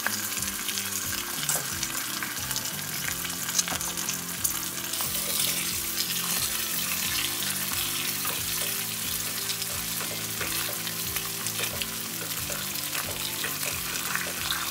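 Pork belly, kimchi and cheese sizzling steadily in a grill pan over a portable gas stove, with a few light clicks of tongs against the pan.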